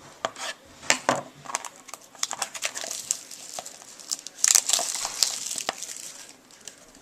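Crinkling of a trading card pack wrapper being handled and torn open: a run of crackles, densest and loudest about four and a half seconds in.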